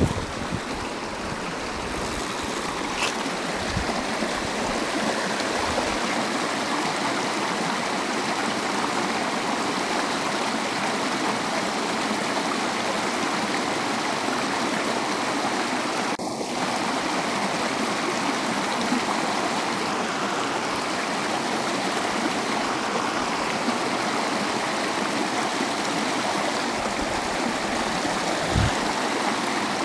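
Creek water rushing steadily over a small falls and riffle. A soft low thump comes near the end.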